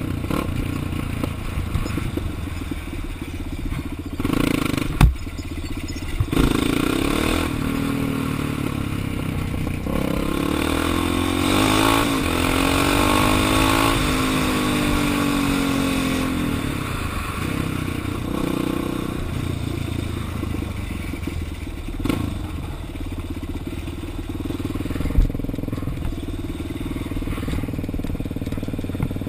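Kawasaki KFX400 quad's single-cylinder four-stroke engine heard on board under way, its pitch rising and dropping as the rider accelerates and shifts through the gears, with a few sharp knocks along the way.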